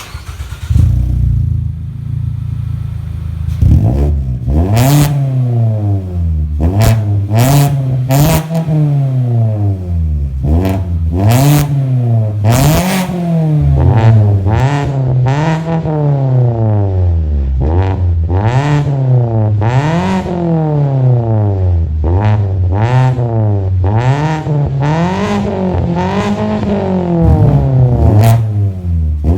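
2021 Mazda 3's four-cylinder petrol engine through an aftermarket full exhaust system with dual exits: idling steadily for a few seconds, then revved and released over and over, about one blip every second and a half.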